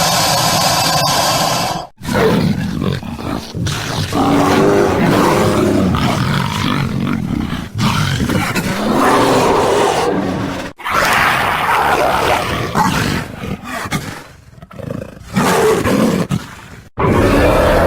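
Giant-monster (kaiju) roar sound effects: a string of long, rough roars with wavering pitch, one after another with short breaks between, after a steady sound in the first two seconds that cuts off sharply.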